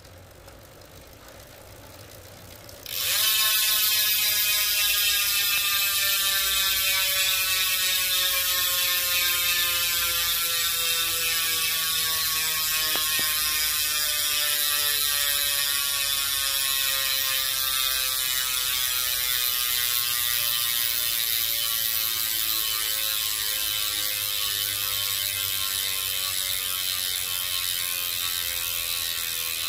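DT Swiss X1700 hub's star-ratchet freehub, upgraded with a Fovno 60-tooth ratchet, buzzing as the wheel freewheels. It is a loud, fast, even rattle of ratchet clicks that starts suddenly about three seconds in, then slowly drops in rate as the spinning wheel loses speed.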